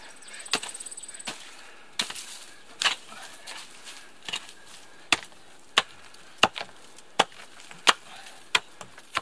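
Sharp, repeated strikes of a digging tool chopping into frozen ground and ice. The strikes are spaced unevenly at first, then fall into a steady rhythm of about three every two seconds from about halfway in.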